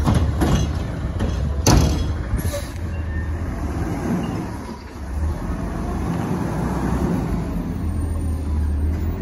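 Autocar ACX refuse truck's diesel engine running as the truck drives forward at low speed, with two sharp metallic knocks in the first two seconds.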